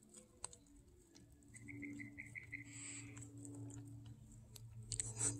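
A terrier nibbling kernels off a corn cob held in a hand: faint crunches and clicks of its teeth, over a steady low hum.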